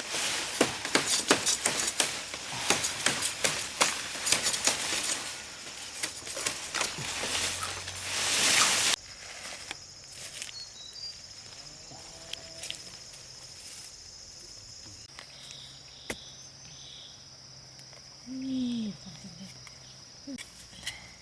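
Water splashing and sloshing in a shallow river, busy and irregular, for about nine seconds, then it cuts off abruptly. What follows is an outdoor insect drone: a steady high buzz with short chirps repeating every second or so toward the end.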